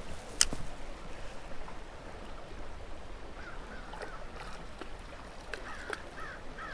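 Steady rush of running stream water, with a few sharp clicks. From about halfway a bird calls over it in a quick run of short, repeated notes.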